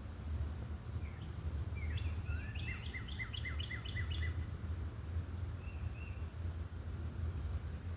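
A songbird singing a quick run of about seven repeated, slurred chirping notes, starting about two seconds in, with a couple of fainter chirps a little later, over a steady low background rumble.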